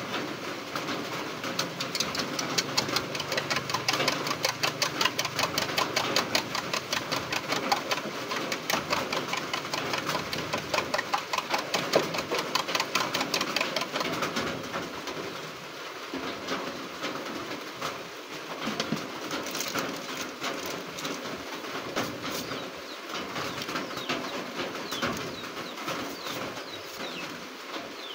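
A spoon beating eggs in a small ceramic bowl: fast, even clicking for about twelve seconds, then softer, scattered clinks.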